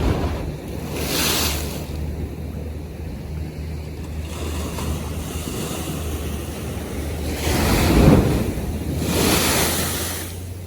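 North Sea waves washing and splashing, with wind buffeting the microphone. Three surges: one about a second in and two near the end, the first of these the loudest. A steady low hum runs underneath.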